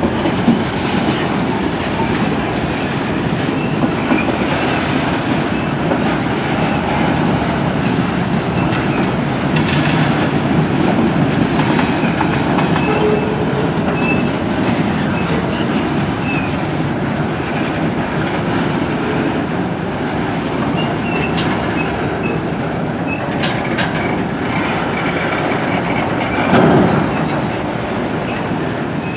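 Freight train cars rolling past: a steady rumble and clickety-clack of steel wheels on rail, with brief faint wheel squeals. A louder knock comes near the end.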